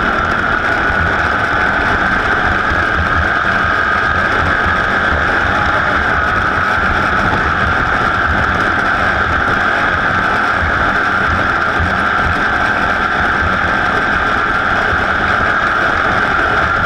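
A racing vehicle's engine running steadily and loudly, its pitch holding level without revving up or down.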